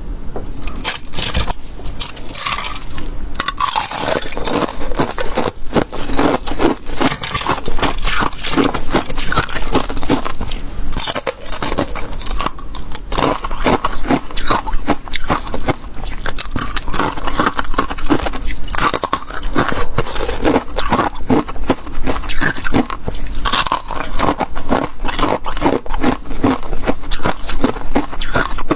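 Flaky, frosty ice being bitten and chewed close to the microphone: a steady run of crisp crunches and crackles.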